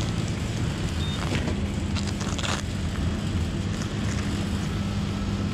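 Motorcycle engine idling steadily, with a short crinkle of plastic about one and a half to two and a half seconds in.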